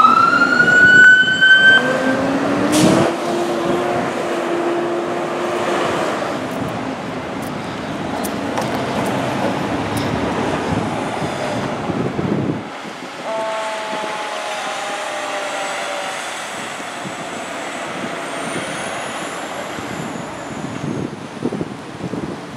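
Federal Q2B mechanical siren on a fire engine winding up to a loud high wail at the start, followed by lower rising tones and later a pair of steady falling tones over the steady noise of the fire trucks pulling out.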